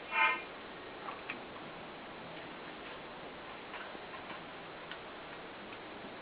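A short, high squeak with several overtones at the start, then a few faint, irregular ticks over a steady hiss.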